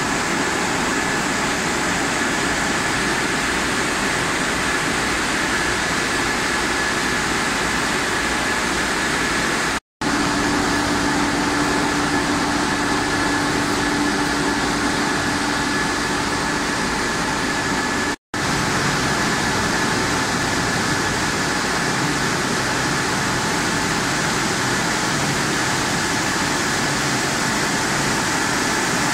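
Steady running noise of an automatic french fries production line's conveyors and drive motors, with a constant high whine over it. The sound breaks off for an instant twice, and a low hum joins it between the breaks.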